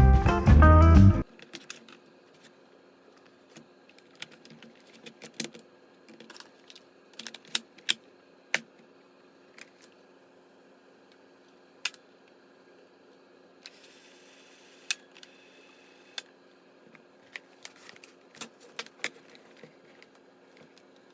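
Background music that stops about a second in, then scattered small clicks and taps of a Sony WM-D6C cassette Walkman and small parts being handled, with a brief rustle near the middle.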